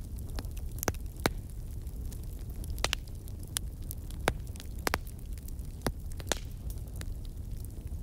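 Crackling fire: a steady low rumble with irregular sharp pops and crackles, about a dozen of them.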